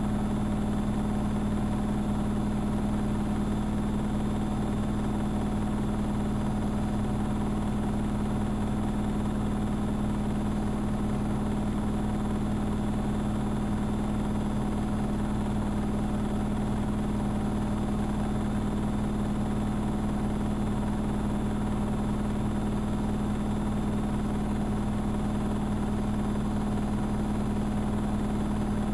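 AEG Electrolux Lavamat L6461 washing machine running with a steady, unchanging hum.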